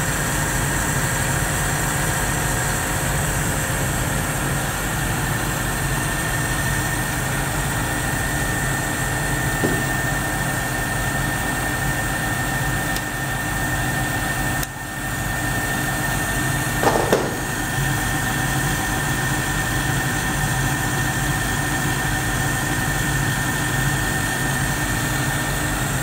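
Hardinge HLV-H super-precision toolroom lathe running: a steady motor and drive hum with a high steady whine. A little past halfway the sound dips briefly and a short knock follows about two seconds later.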